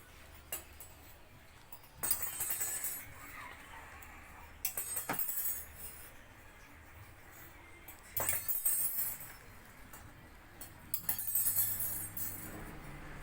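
Metal tools and engine parts clinking and jangling in short bursts, several times.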